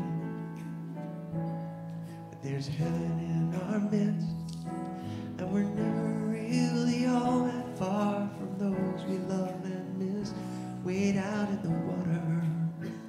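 A man singing a song to electric keyboard accompaniment, held chords sounding under the voice.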